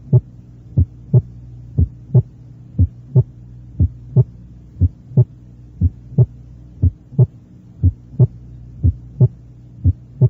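Recorded human heart sounds as heard through a stethoscope: a steady lub-dub at about one beat a second over a low steady hum. The recording illustrates a first heart sound that is diminished and muffled because the mitral and tricuspid valves are already partly closed when the ventricles contract.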